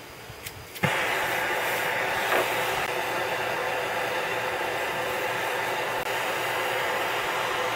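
MAP gas hand torch lit with a click a little under a second in, then its flame hissing steadily as it heats a piece of circular saw blade steel toward hardening temperature.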